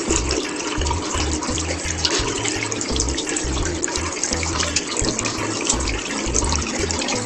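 Water running from a tap and splashing as it is scooped up in cupped hands, a steady rushing hiss full of small splashes, with background music and low bass notes underneath.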